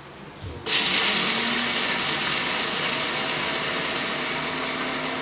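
A Wisesmart commercial grinder blender is switched on at medium speed. Its motor starts suddenly under a second in and runs steadily, loud, grinding dried beans.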